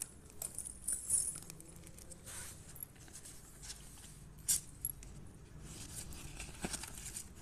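Paper and card rustling and crinkling as a folded certificate card and a leaflet are handled, with scattered small clicks and one sharper tap about four and a half seconds in.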